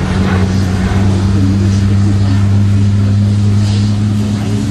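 Antonov An-178 transport jet's two turbofan engines during a display flypast: a loud, steady low drone under a rushing noise, its pitch shifting upward near the end.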